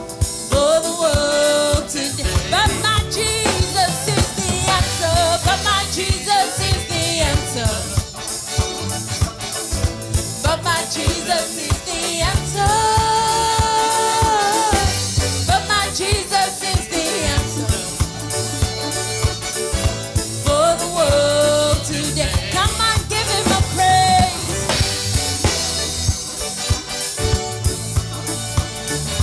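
Gospel praise band playing an upbeat worship song, with drum kit and bass keeping a steady beat and a melody line that bends and holds a long note near the middle.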